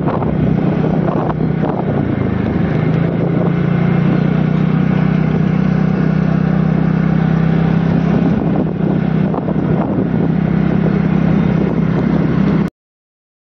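Motor scooter engine running at a steady cruising speed, with wind buffeting the microphone. The drone firms up a few seconds in and cuts off suddenly near the end.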